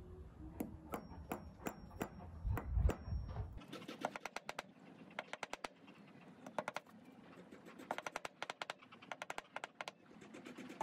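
Engraving pen point scratching and tapping letters into an aluminum dog tag. A few spaced ticks come first, then quick runs of sharp ticks.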